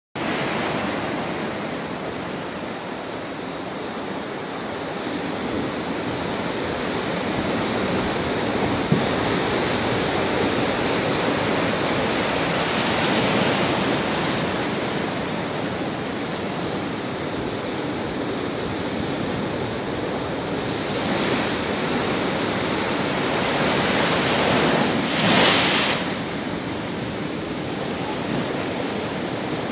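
Heavy cyclone-driven surf breaking against the shore and over a concrete jetty, with wind on the microphone. It is a continuous rush of water that swells several times, loudest in a surge about 25 seconds in.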